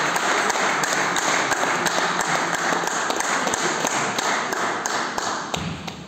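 A small crowd of spectators clapping after a point is won, the claps dense and quick, dying away about five and a half seconds in.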